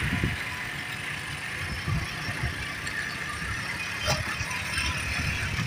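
A farm tractor's diesel engine running and fading as it drives away down the road, under an irregular low rumble.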